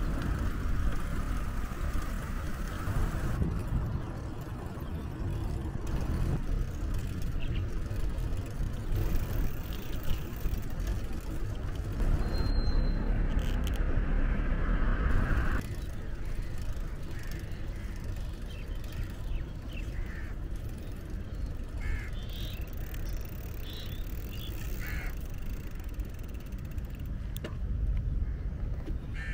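Outdoor road ambience heard from a moving bicycle: a steady low rumble of wind and road noise, with passing traffic swelling louder twice.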